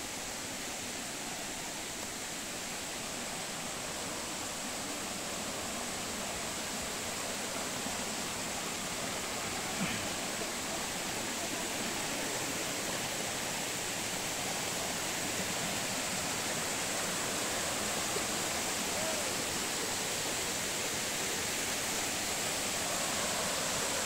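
Rushing water of a mountain stream and its small waterfall, a steady hiss that grows slowly louder.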